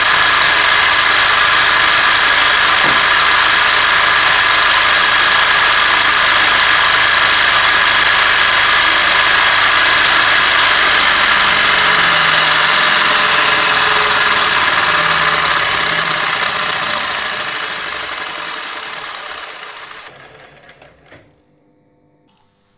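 Scrapped household sewing machine's electric motor running on a 440 V three-phase supply, far over its rated voltage: a loud, steady, high-pitched whine with mechanical rattle. About sixteen seconds in it starts to die away, fading to near silence over the next five seconds.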